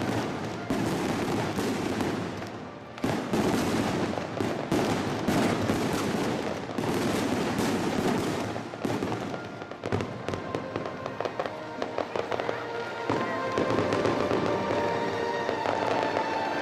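Aerial fireworks bursting in quick succession, with dense rapid crackling, over music.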